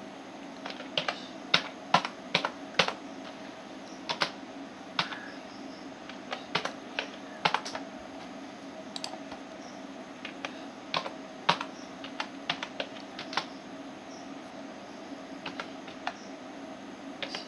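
Typing on a computer keyboard: irregular key clicks, often in quick clusters of two or three, over a steady low hum.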